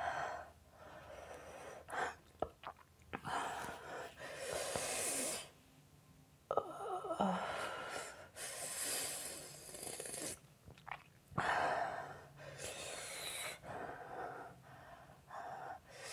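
A woman breathing hard through an open mouth in a series of long, hissing breaths, with sniffs and a short vocal whimper, to cool a mouth burning from an extremely hot chili chip.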